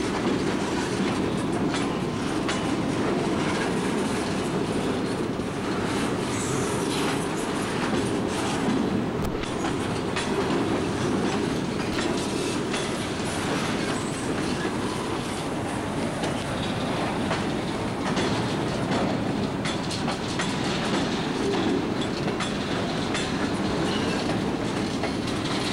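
Freight train's empty center-beam flatcars rolling steadily past, wheels rumbling and clicking over the rail joints.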